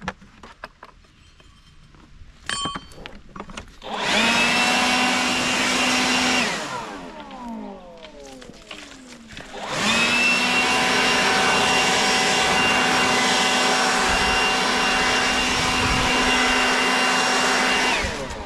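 A high-speed electric motor is switched on for about two seconds, shut off, and winds down with a falling whine. It starts again about ten seconds in, runs at a steady pitch for about eight seconds, and is shut off to wind down once more near the end.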